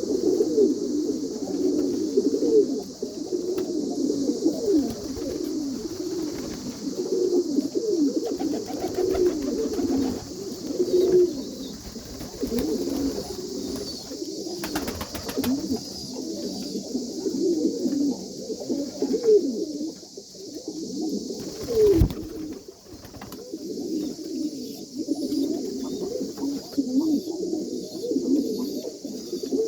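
Pigeons cooing in a dense, continuous run of short low calls, over a steady hiss. A single sharp knock comes about twenty-two seconds in.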